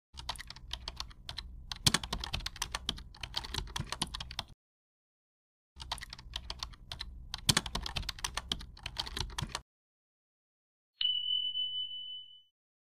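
Keyboard-typing sound effect: rapid key clicks in two runs of about four seconds each, with a short silence between. About a second after the second run, a single bright ding rings for about a second and a half as the correct answer is ticked.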